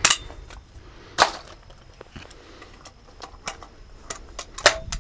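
Break-action shotgun being reloaded between pairs: a run of small metallic clicks with two sharp clacks, about a second in and near the end, the last one ringing briefly.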